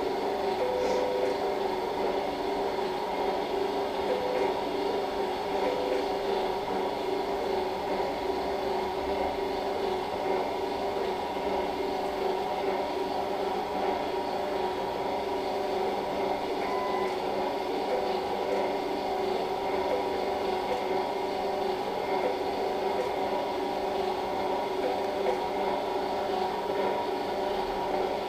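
Steady mechanical hum of operating-room equipment running, with a few short beeps in the first seconds.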